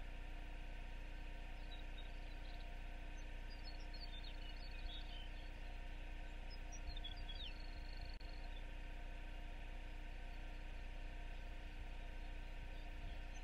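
Steady faint hiss and low hum of an outdoor microphone, broken twice by short clusters of high chirping calls with a few falling notes and a brief rapid trill.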